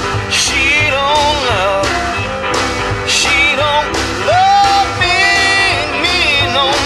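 Electric blues band recording: bending lead lines over bass and a steady drum beat.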